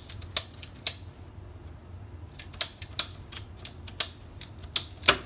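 Irregular sharp clicks and snips, about eight to ten of them, as a cutting tool trims the humidifier's plastic water feed tube to length.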